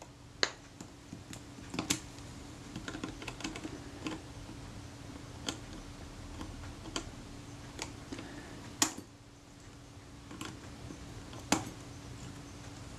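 Irregular small metallic clicks and ticks as pliers grip and twist a seized screw out of a Kodak Retina Reflex IV camera's top. The screw had been driven past its thread and stripped, so it turns only under force. A faint steady hum runs underneath.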